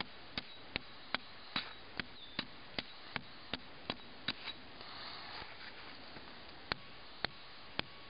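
Sharp knocks repeating evenly, about two and a half a second, stopping for a couple of seconds about halfway through and then resuming, over a faint steady hiss.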